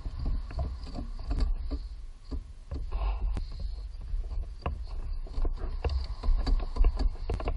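Hands and tools working in a car's engine bay: irregular clicks, knocks and scrapes of parts being handled, over a low rumble.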